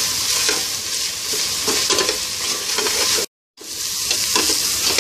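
Chopped chicken, shredded cabbage and grated carrot frying in hot oil in a pot, sizzling steadily as a metal spoon stirs them. The sound cuts out for a moment a little over three seconds in.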